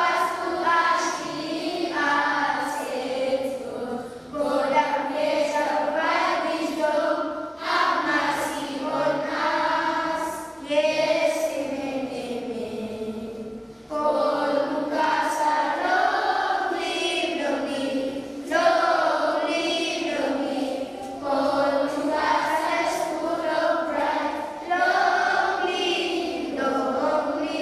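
A group of children singing together in chorus, in phrases a few seconds long with short breaks between them.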